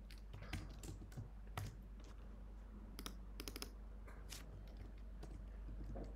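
Faint, irregular keystrokes on a computer keyboard, a few clicks at a time.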